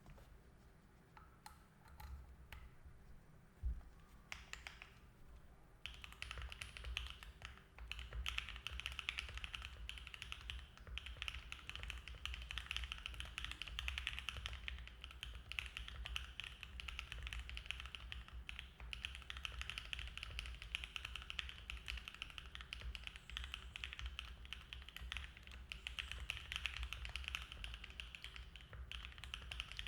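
Mode Envoy mechanical keyboard with SOTC switches (lubed with Krytox 205g0 and filmed), an FR4 plate, foam-filled case and GMK keycaps being typed on. A few separate keystrokes come first, then steady, fast continuous typing from about six seconds in.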